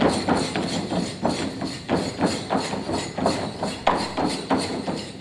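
Folk dancers' feet stamping in a steady rhythm, about three stamps a second, with no music.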